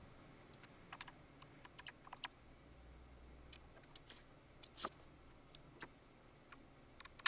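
Faint, irregular small clicks and ticks of a screwdriver working the screws out of the side panels of a Digidesign 003 console, with a sharper click near the end.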